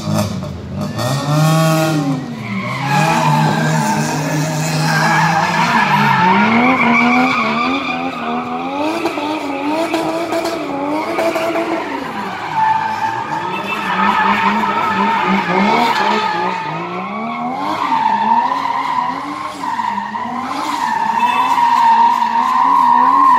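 A car engine revving hard up and down, its pitch rising and falling about once a second, while the tyres squeal and skid as the car slides sideways in drifts and spins. In the last few seconds a long, steady tyre squeal runs over the engine.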